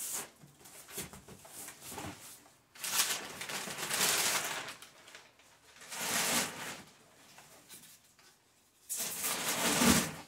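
Brown packing paper rustling and crinkling as it is pulled out of a cardboard shipping box, in several bursts, the longest about three seconds in and the loudest near the end.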